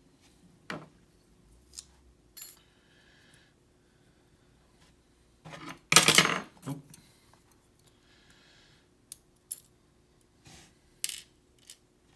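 Small steel parts of a disassembled pin-tumbler lock clicking and tapping as the pins are handled and taken out, with one louder clatter about six seconds in.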